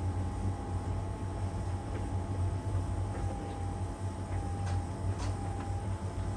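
LG heat pump tumble dryer running mid-cycle: a steady low hum from the drum motor and heat-pump compressor, with a steady whine above it. A few light clicks come about two-thirds of the way through.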